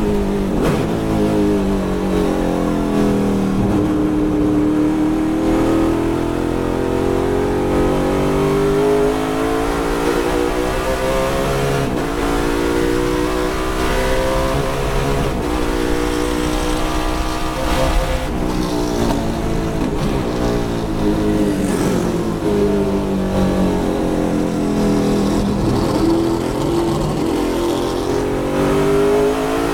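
Ford Mustang muscle-car V8 heard from inside the race car's cabin at racing speed. The engine note climbs as it pulls hard down the straights and drops away each time it lifts and brakes for a corner, then climbs again. There is a brief knock about 18 seconds in.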